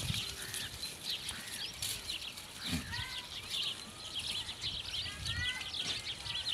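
Rajanpuri goats grazing, with a few short bleats, over a steady chatter of high-pitched bird chirps.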